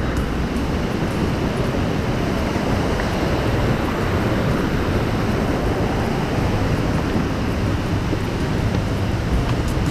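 Steady, loud rushing of water, an even noise with no breaks.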